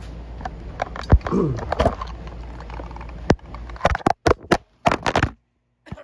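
Handling noise of the recording camera: a string of sharp knocks and clicks, coming thick and fast in the second half. The steady background hum cuts out near the end.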